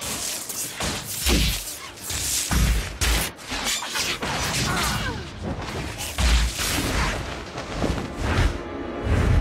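Film sound effects of a wand duel: a rapid string of spell blasts, whooshes of fire and deep booming impacts, about six heavy hits in all.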